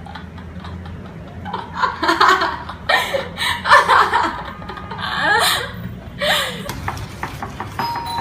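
Girls laughing in several bursts in the middle, over a steady low hum.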